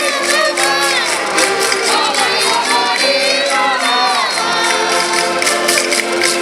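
Women's voices singing a Minho folk desafio tune, with wavering pitch, over diatonic button accordions (concertinas) and a steady beat. The singing fades out about four and a half seconds in, and the concertinas play on.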